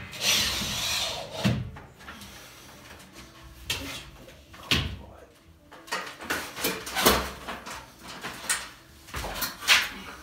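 Sheets of moisture-resistant gypsum plasterboard being handled and pushed up against the metal ceiling frame: a rustle of scraping near the start, then separate sharp knocks every second or two as the board bumps into place.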